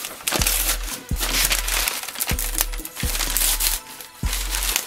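A plastic-fibre USPS mailing envelope crinkling and rustling in a run of loud scrunching bursts as it is pulled and torn open by hand.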